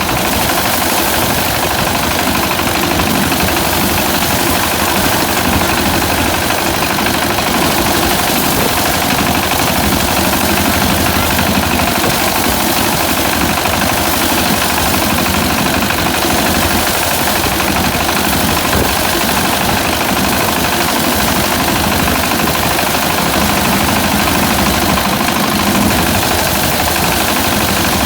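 Engine of a locally built rice-harvesting machine running steadily with a fast, even chugging.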